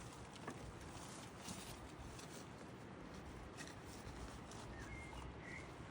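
Faint outdoor background with soft rustles and a few light clicks, and a brief faint chirp about five seconds in.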